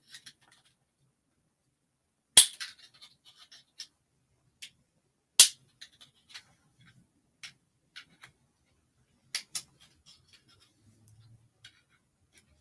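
Sharp clicks and taps of small easel parts being handled and fitted by hand: two loud clicks about two and a half and five and a half seconds in, then a scatter of lighter clicks.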